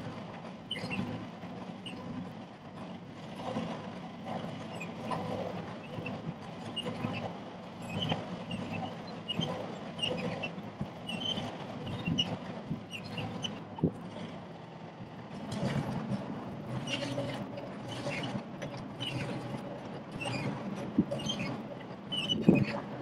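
Sany SY50U mini excavator's diesel engine running steadily under digging load, with creaks and short squeaks from the moving arm and a few sharp knocks of the bucket, the loudest near the end.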